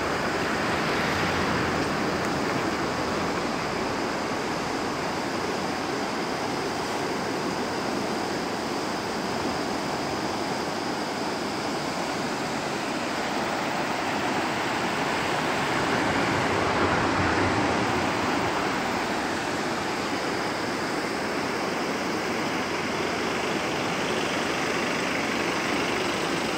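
Steady rushing noise of a swollen, muddy river, with a car passing on the road about two thirds of the way in, briefly making the sound louder.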